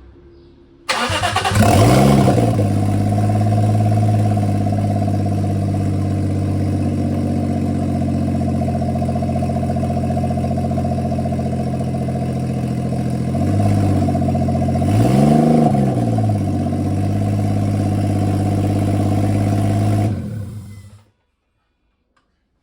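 Turbocharged Lexus IS200 1G-FE straight-six starting at once on a quick restart about a second in, revving briefly, then idling steadily with two short throttle blips past the middle, and switched off near the end.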